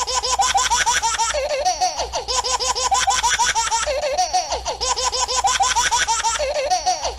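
A baby laughing in quick, repeated giggles.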